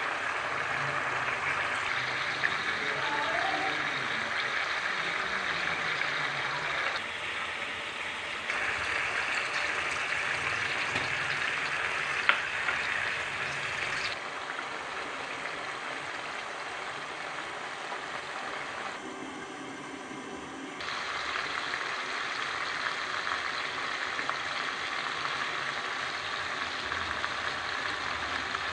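Boneless chicken pieces sizzling and bubbling in hot oil and their own juices in a wok on a high flame, a steady hiss, with a couple of sharp clicks from the wooden spatula.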